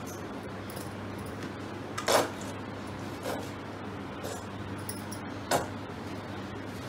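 Plastic mustard squeeze bottle being handled and squeezed over a glass bowl: a few short clicks and knocks, the loudest about two seconds in, over a steady low hum.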